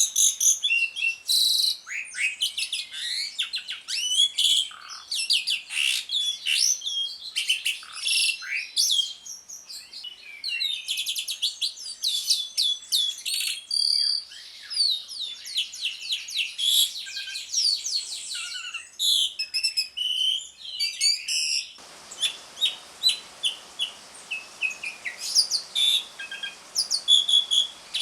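Jalak suren (pied starling) singing in a fast, unbroken stream of high chirps, chatters and short whistles, the rapid 'ngriwik' twittering. About three-quarters of the way in, the background turns hissier, as if a different recording takes over.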